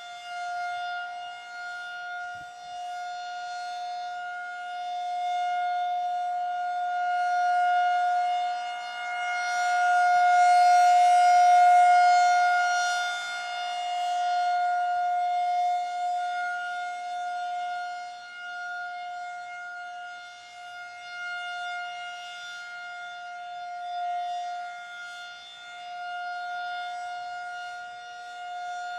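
Federal Signal 2001-SRN electromechanical warning siren sounding its steady alert tone during a test. The pitch holds constant while the level slowly swells and fades, loudest about ten to fourteen seconds in, as the rotating horn sweeps past.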